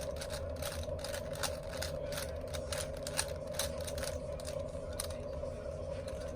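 Plastic 4x4 Rubik's cube being turned by hand: a quick, irregular run of clicks and clacks as the layers rotate, thinning out about five seconds in. A steady background hum runs underneath.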